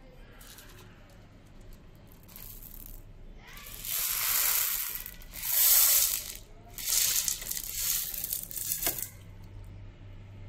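Mixed dry whole pulses, chickpeas and mung beans among them, sliding off a plastic plate and pouring into a plastic bowl: a rattling hiss of hard grains on plastic that comes in three surges, from about three and a half seconds in to about nine seconds.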